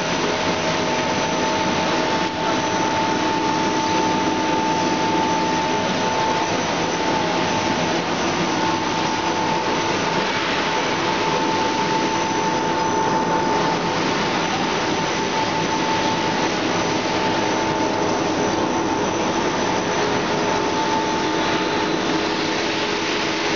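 Snack-extruder production-line machinery running: a steady mechanical whir with a steady high hum over it.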